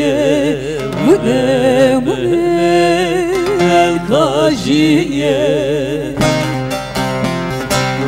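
A woman singing a Turkish folk song (türkü) with heavy vibrato and ornamented, wavering notes, accompanied by bağlamas. About six seconds in her line ends and the bağlamas carry on alone with quick plucked strokes.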